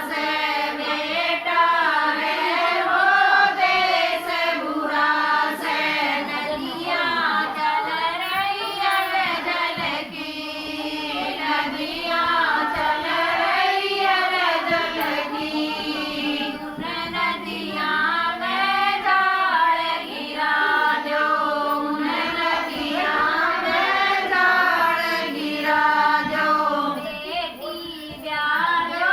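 Group of women singing a Haryanvi banna, a traditional folk song for the bridegroom, in chorus with long held notes.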